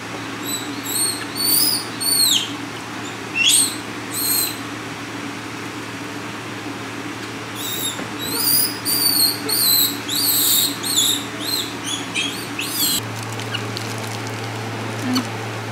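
High-pitched animal chirps, short and clear, several sliding down in pitch: a few in the first four seconds, then a quicker run of them from about 8 to 12 seconds in. A steady low hum lies under them.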